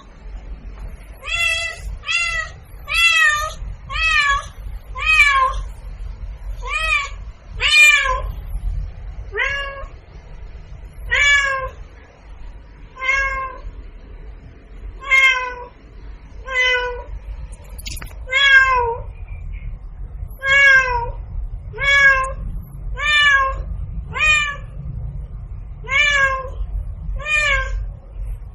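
Domestic cat meowing over and over, about twenty short meows coming roughly every second and a half, over a low steady hum.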